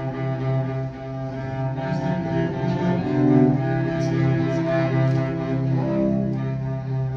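Cello bowing long sustained notes, changing pitch a few times.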